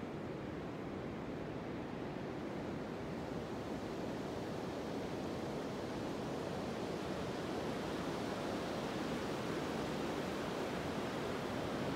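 Steady rush of a mountain stream, an even roar of flowing water that grows a little louder near the end.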